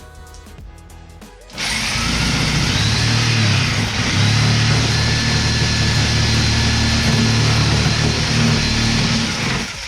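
Electric power saw cutting through a wooden cabinet face frame, starting about a second and a half in, running steadily for about eight seconds and stopping just before the end.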